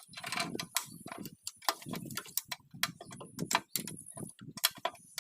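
Irregular sharp metallic clicks and knocks, several a second, from hand tools and metal parts being handled.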